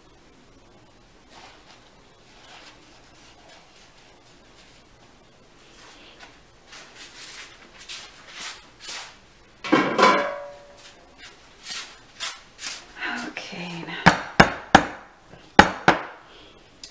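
Sharp knocks and clatter of soap-making tools and plastic molds being handled on a work counter, ending in a quick run of about five loud knocks.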